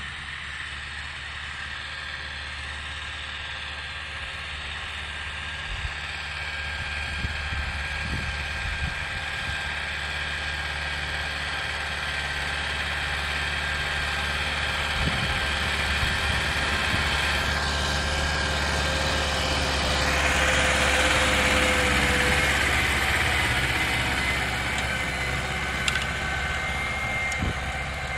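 SAME Laser 90 tractor's air-cooled diesel engine working steadily under load while pulling a harrow through tilled soil. It grows louder as the tractor approaches, and its pitch drops slightly as it passes close by, about two-thirds of the way in.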